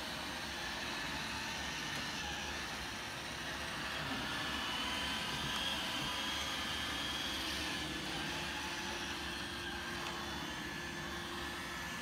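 Roomba robot vacuum running on a rug: a steady whir of its suction motor and brushes, with a faint high whine partway through.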